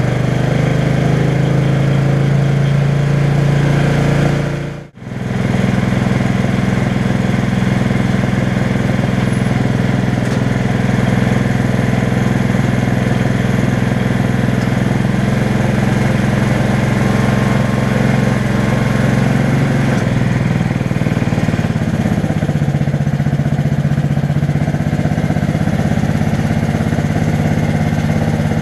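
An 11 hp Honda single-cylinder engine on a converted Case tractor, running steadily and driving the belt-and-pulley reduction. The sound breaks off for an instant about five seconds in. Its pitch shifts slightly around twenty seconds in.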